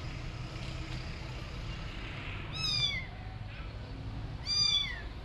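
A young orange-and-white kitten meowing twice, about two seconds apart, each cry high-pitched and dropping in pitch at the end, over a low steady background rumble. The cries of a kitten left alone, calling for its mother.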